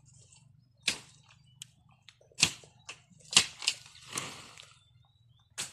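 Overgrown brush being cleared by hand: a string of sharp cracks of breaking stems and branches at irregular intervals, with a longer rustle of leaves a little after four seconds in.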